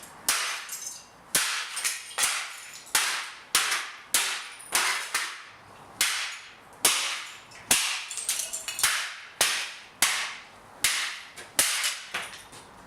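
A golf club repeatedly smashing a vintage General Electric metal-and-plastic fan heater: a steady run of hard, sharp strikes, roughly one every 0.7 seconds, each with a brief clattering ring as the casing breaks apart.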